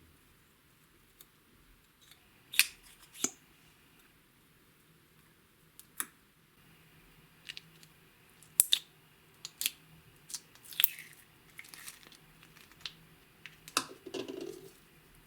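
Clear slime being mixed by hand, giving scattered sticky clicks and pops. They come irregularly, some sharp and loud, with a denser crackling cluster near the end.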